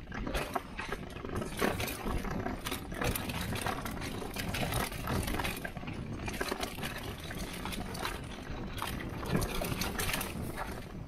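Mountain bike riding fast down a loose dirt trail: tyres rumbling and crunching over the dirt, and the bike rattling with frequent sharp clacks over bumps.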